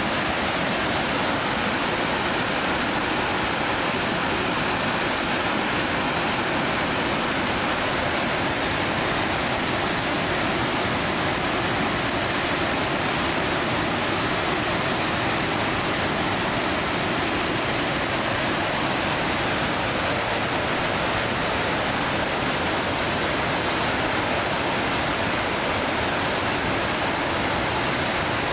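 Victoria Falls: a steady, even rush of falling water.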